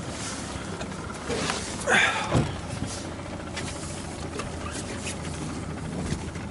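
Small boat's outboard motor idling steadily, with a short loud burst, probably a shout, about two seconds in.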